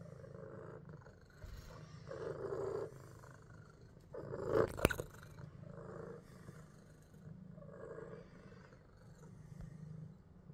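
Domestic cat purring steadily close by, swelling louder every second or two with each breath. A short loud rustle with a sharp knock breaks in about five seconds in.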